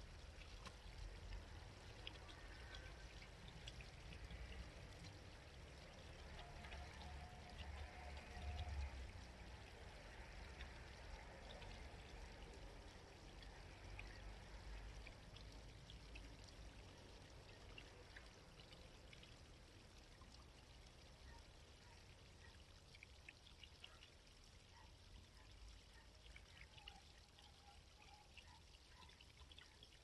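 Faint, steady babbling of a small shallow stream, water trickling and splashing over stones, with a few faint bird calls.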